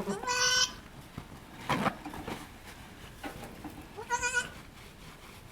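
Newborn goat kid bleating: two short high-pitched bleats, one just after the start and another about four seconds in, with a fainter lower sound between them.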